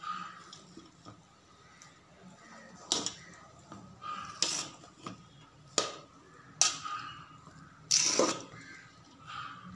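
A metal spoon stirring cooked rice in a metal pot: soft scraping and rustling of the rice, with about five sharp clinks as the spoon knocks the pot, the loudest late on.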